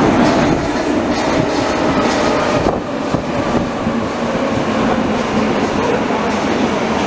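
Berlin U-Bahn train moving past along an underground station platform, a loud, steady running noise of wheels on rails and motors.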